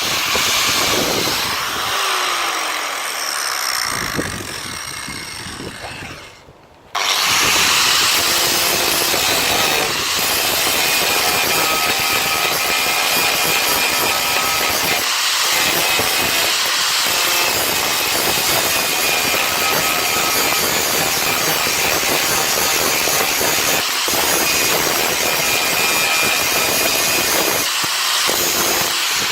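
Angle grinder cutting into car-body sheet steel, grinding out spot welds to separate welded floor panels. It fades and stops briefly about six seconds in, then starts again and grinds steadily.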